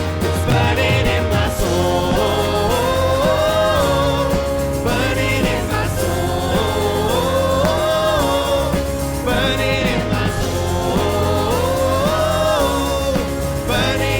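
Live worship band playing a song, with a voice singing the melody over a steady bass line and long held notes.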